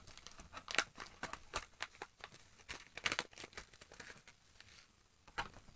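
Clear plastic lure packaging crinkling and crackling in the hands as a fishing jig is worked out of it. The sound is an irregular run of small crackles that thins out near the end.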